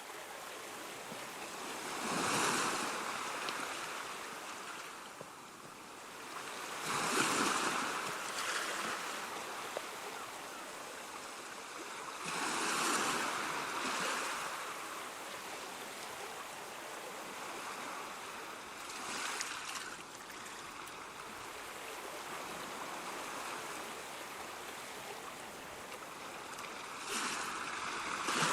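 Sea waves breaking on a shore over a steady wash of surf, the surges swelling and falling back about every five seconds.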